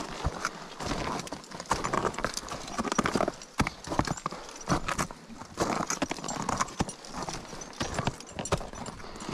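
Crampon footsteps crunching into hard snow and ice, step after step in a steady walking rhythm.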